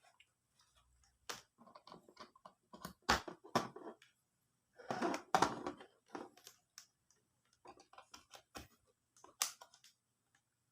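Irregular clicks, taps and short rattles of small tools and parts being handled on a repair bench. A louder scraping rattle comes about three seconds in and again about five seconds in.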